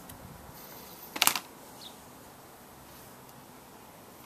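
A quick cluster of sharp clicks of small hard objects about a second in, over a low steady hiss.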